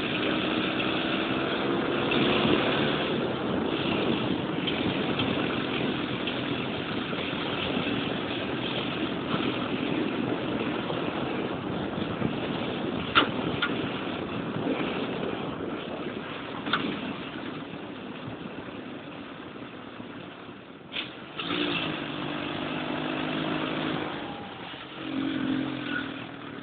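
A 650 cc buggy engine running under way, its pitch rising and falling with the throttle, over a steady rush of tyre and driving noise. A couple of sharp knocks come near the middle, and toward the end the engine settles to a steadier, quieter note.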